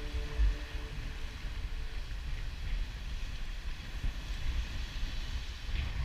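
Wind noise on a head-mounted action camera's microphone, a steady low rumble, over surf washing around sea rocks.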